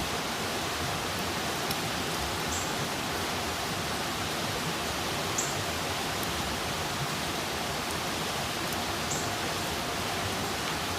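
Campfire burning with a steady hiss and a few sharp crackles and pops, the loudest about five seconds in.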